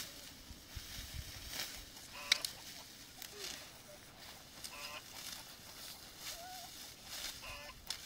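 Poultry calling, several short calls a second or two apart, over scattered short crackles; the loudest crackle comes with a call a little over two seconds in.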